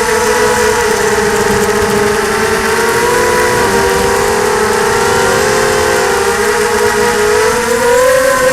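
Brushless motors and propellers of a ZMR 250 quadcopter whining, with several close pitches beating against each other. The pitch sags slightly through the middle, then rises about eight seconds in as the throttle comes up.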